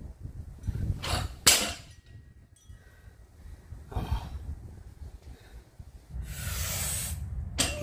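A weightlifter's loaded barbell with bumper plates comes down onto the concrete floor, with a loud hit about a second and a half in after a first one just before it. Hard, sharp breaths from the lifter come between lifts, with a long breath near the end as he bends to the bar again.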